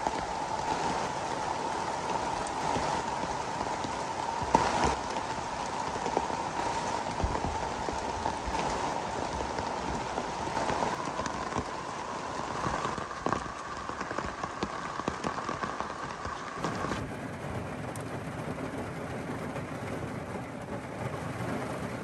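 Heavy rain falling steadily on wet grass and a canvas tent, with a few sharp drops or taps standing out. About 17 seconds in, the sound turns duller and lower: rain drumming on a car, heard from inside.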